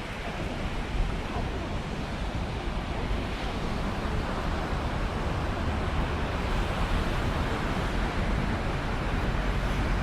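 Atlantic Ocean surf washing on the shore as a steady rushing noise, with wind rumbling on the phone's microphone.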